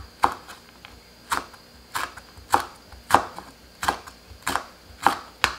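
Chef's knife slicing a red chili pepper diagonally on a wooden cutting board: about nine sharp knocks of the blade on the wood, roughly one every two-thirds of a second.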